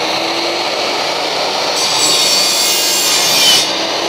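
Makita miter saw running at full speed with a fine-tooth aluminium-cutting blade. About two seconds in, the blade bites into an aluminium profile and a harsh, high-pitched cutting noise rises for about two seconds, peaking just before it stops, with the motor still running.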